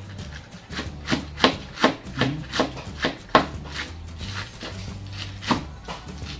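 Kitchen knife slicing vegetables thinly on a cutting board: a run of crisp cuts, roughly two to three a second, pausing after the middle before one more cut.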